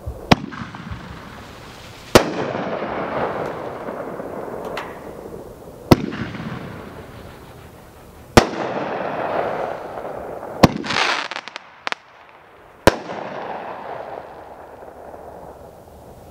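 Consumer aerial fireworks cake (Red Rhino 'Big Bad Wolf') firing its final shots: about seven sharp bursts at uneven intervals, each trailing off over a few seconds, with a quick cluster of small pops just before the last bursts, then dying away.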